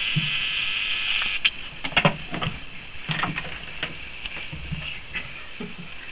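A kitten's claws scratching and scrabbling on a sisal-wrapped cat tree as it climbs: a scratchy rustle for about the first second and a half, then scattered soft knocks and scrapes.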